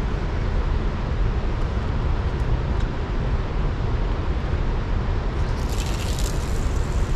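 Wind buffeting the microphone in a steady low rumble. About five and a half seconds in, a brief hiss as fishing line runs off a spinning reel during a cast.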